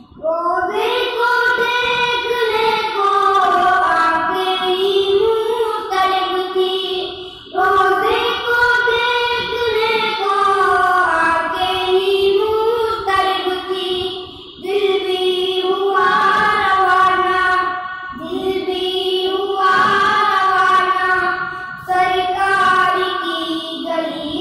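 Two boys singing a naat together, unaccompanied, in long melodic phrases broken by short pauses for breath.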